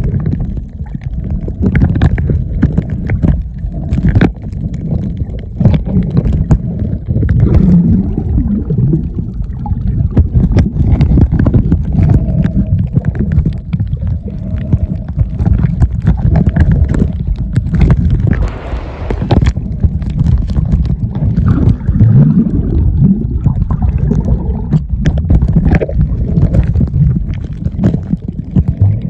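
Underwater sound picked up by a submerged camera: a loud, deep, muffled rumble of moving water with gurgling and many sharp clicks and knocks.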